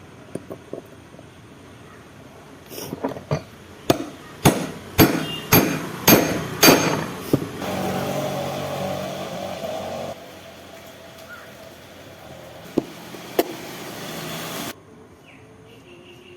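A series of about seven sharp metal taps, roughly half a second apart, typical of a gear being hammered onto an angle grinder's shaft during gear fitting. This is followed by a steady rough mechanical noise that lasts several seconds and cuts off abruptly.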